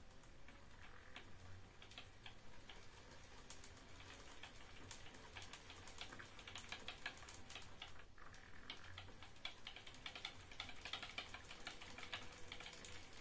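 Salvaged unipolar stepper motor running slowly under its own power, turning a timing belt with wooden pulleys and two Z-axis lead screws: faint, irregular ticking and clicking, denser in the second half.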